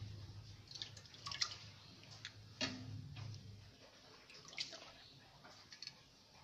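Handfuls of wet, soaked rice dropped by hand into a pot of water, with several small splashes and drips of water.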